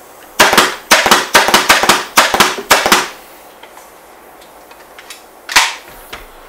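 Pneumatic upholstery staple gun firing staples through seat webbing into a wooden chair frame: a rapid run of about a dozen sharp shots over some two and a half seconds, then a single sharp knock near the end.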